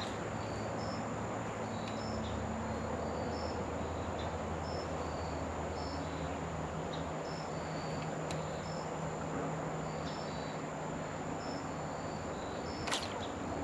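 Insects chirping: short high chirps repeating irregularly at two alternating pitches over a steady low hum and rushing background. One sharp click near the end.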